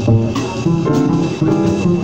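Live jazz combo playing: an upright double bass plucking a run of notes, with a drum kit behind it.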